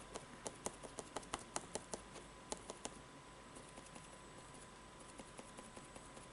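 Quick light tapping of a foam sponge dauber dabbing paint onto a board, about five taps a second, growing fainter and sparser about halfway through.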